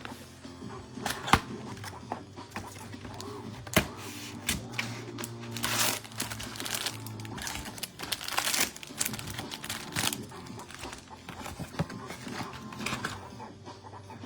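Background music, with card-pack wrappers crinkling and being torn open and a few sharp clicks and knocks, the loudest about a second in and just before four seconds.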